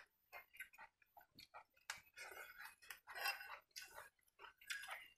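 Faint, irregular clicks, taps and light scrapes of steel dishes and a kitchen knife being handled.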